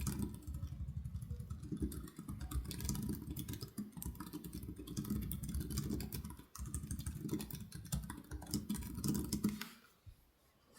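Fast, continuous typing on a computer keyboard, a dense run of key clicks that stops about a second before the end.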